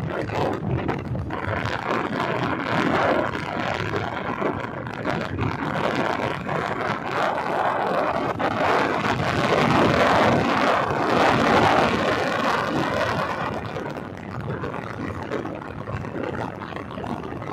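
Wind rushing over the microphone with the road noise of a motorcycle riding at speed. The rush swells loudest past the middle and eases near the end.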